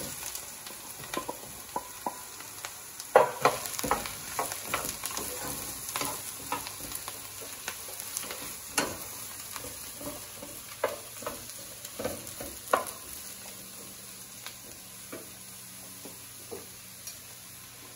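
Sliced mushrooms sizzling in hot oil with onion and garlic in a wide pan, stirred with a wooden spoon that knocks and scrapes against the pan. The spoon knocks come thick in the first half and thin out later while the sizzle carries on.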